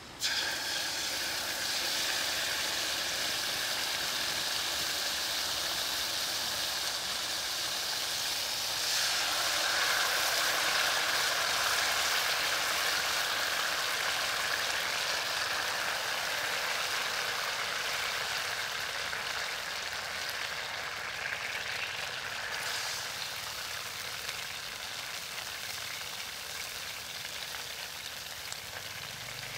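Red sauce frying in hot oil in a wok, a steady sizzle. The sizzle grows louder and brighter about a third of the way in, then slowly dies down toward the end.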